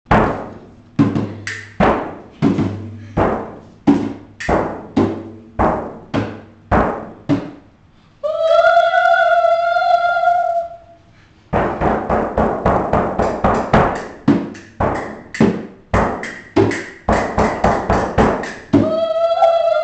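Children beating drums, a large frame drum struck with a stick and a small hand drum, in a steady beat of about two strikes a second, each strike ringing out. About eight seconds in the drumming stops for a held 'ooo' call from the children's voices lasting about two and a half seconds, then faster, busier drumming follows, with the call again near the end.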